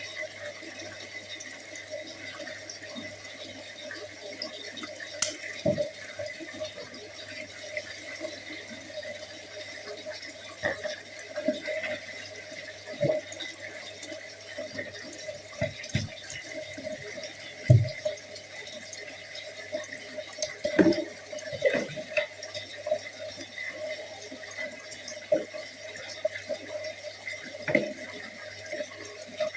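Water running from a sink tap, with scattered knocks and clatters of things being handled in the sink; the loudest knock comes a bit past halfway.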